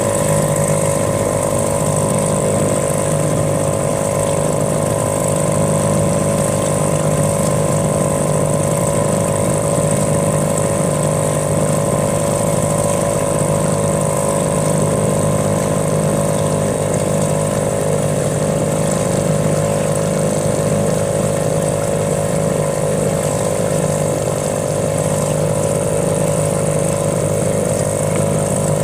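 A small engine running steadily at a constant speed, its pitch unchanging throughout.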